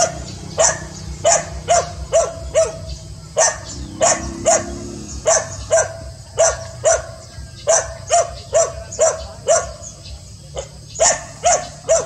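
A dog barking over and over, about two barks a second, with a brief pause near the end.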